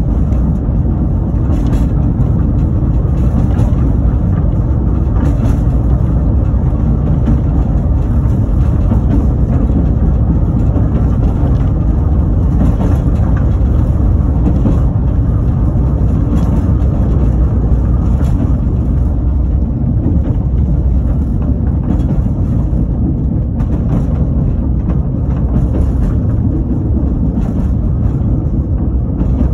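Narrow-gauge train rolling along, heard from the open rear platform of its last carriage: a steady low rumble of wheels on rails mixed with wind, with occasional faint clicks.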